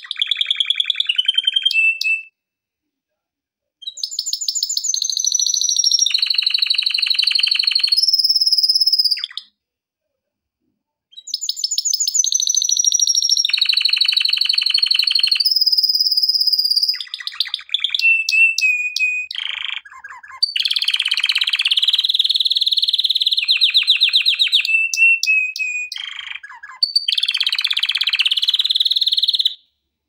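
Male domestic canary singing loudly in long phrases of rapid trills and rolls with a few held whistled notes, broken by two short pauses around three and ten seconds in.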